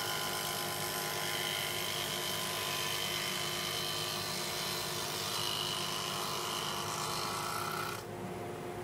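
Table saw running while wood is fed through the blade, cutting a slot in a chair rocker held in a jig for a spline repair. The cutting hiss stops suddenly about eight seconds in, leaving the saw's steady hum.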